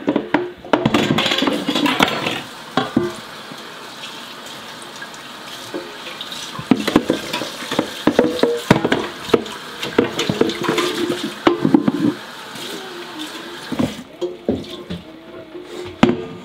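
Kitchen tap running into a sink while a stainless steel pot is scrubbed and rinsed, with repeated knocks and clatters of metal against the sink. The running water stops about 14 seconds in, and a few clanks follow.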